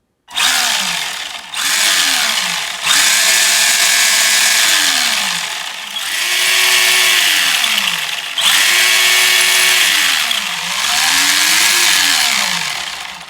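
Vintage Tamiya BigWig RC car's electric motor spun up on the bench through its speed controller. It whines up and falls back about six times as the throttle is pushed and released, showing that the motor works.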